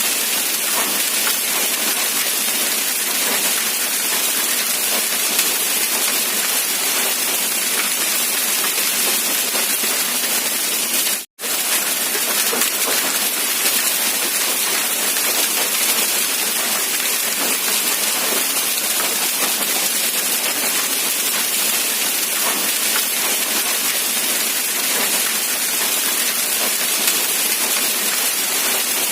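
Steady rain falling, an even dense hiss that cuts out completely for an instant about eleven seconds in.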